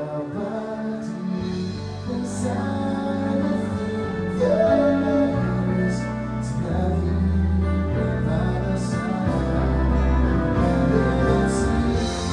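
Live band playing a slow song: held low bass notes that change about once a second under guitar and a singing voice, with a few light cymbal strokes.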